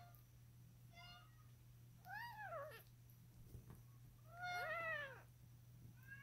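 Newborn Maine Coon kitten crying in about five short, faint, high mews that rise and fall in pitch, the two longest about two and four and a half seconds in, while a feeding tube is in its mouth. The crying is taken as the sign that the tube is not in the lungs.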